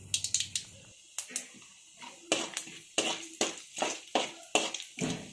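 Mustard seeds and chana dal crackling and popping in hot oil in a kadai. From about two seconds in, a metal spoon stirring scrapes and taps against the pan in quick strokes, about three a second.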